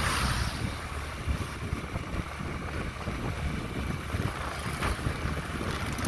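Wind rushing over the microphone of a phone carried on a moving vehicle, over a low road rumble, with a louder rush of noise right at the start.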